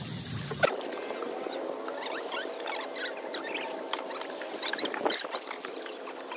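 Hand-rowed wooden sampans: oars splashing in the water and creaking against the boats, making many short, scattered high squeaks.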